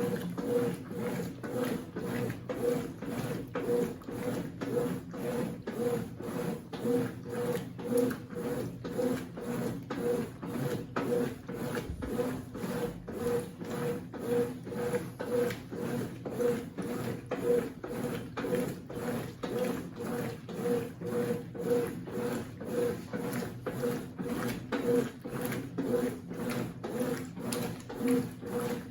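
Consul CWC08 8 kg washing machine running its wash cycle with a bedspread inside: a steady, regular mechanical beat of about three pulses a second from the motor and drum working the load.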